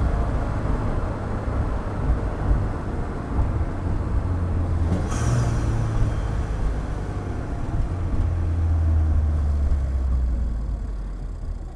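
2015 Ford Fiesta ST's turbocharged 1.6-litre four-cylinder running under way, heard through microphones in the engine bay and by the exhaust: a low drone that shifts pitch in steps, with a brief high hiss about five seconds in.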